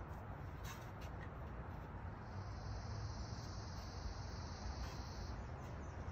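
Outdoor ambience with a steady low rumble. About two seconds in, a thin, high trill starts and holds for about three seconds, then fades away in pulses.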